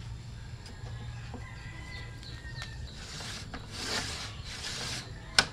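A cordless circular saw and a metal cross-cut jig rail being handled on a workbench: a few brief scraping, brushing sounds about three to five seconds in, then a single sharp knock just before the end, the loudest sound.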